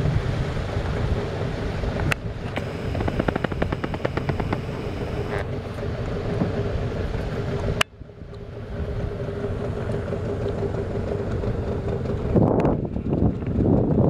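Wind rumbling on the microphone aboard a small fishing boat, over a steady motor hum. Two sharp clicks, about two seconds in and again near the middle.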